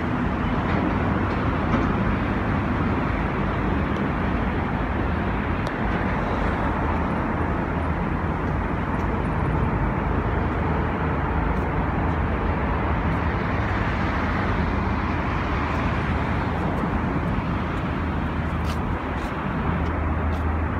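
Steady road traffic noise with a constant low rumble.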